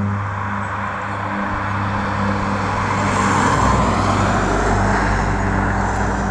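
2018 Ford Fiesta driving past through a hairpin bend. Its engine and tyre noise swells as it comes closest, about three to four seconds in, then eases off as it pulls away.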